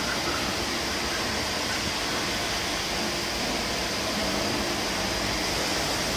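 Okamoto CNC ring grinder running in its automatic cycle with its coolant filtration and hydraulic units: a steady mechanical hum and hiss with a thin, steady high whine on top.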